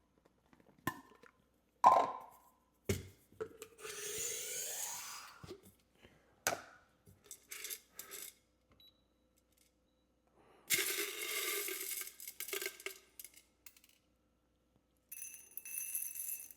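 Espresso-prep handling: scattered clicks, knocks and clinks of coffee gear, with two longer rattling, hissing stretches about four and eleven seconds in.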